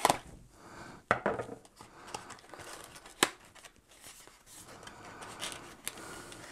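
Small SSD retail box being opened by hand: packaging scraping and rubbing, with sharp clicks and snaps at the start, a cluster about a second in and one louder click about three seconds in.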